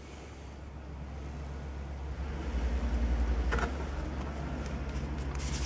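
Low rumble of a passing road vehicle, swelling about two seconds in and easing off again, with a single short click partway through.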